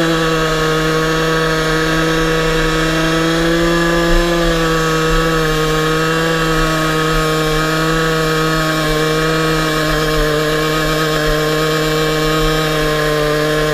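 Aprilia SX 50's two-stroke moped engine held at high, steady revs during a burnout, its pitch easing slightly about four seconds in.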